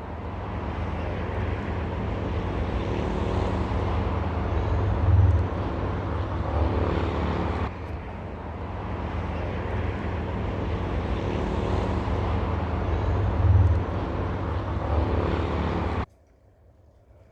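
Ocean surf rushing with a deep rumble, swelling louder about five seconds in and again near the end; the same stretch of about eight seconds plays twice and cuts off sharply.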